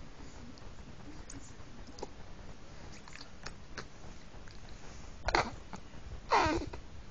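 A month-old baby's small wet mouth clicks and lip smacks, then near the end a short squeaky vocal noise whose pitch wavers.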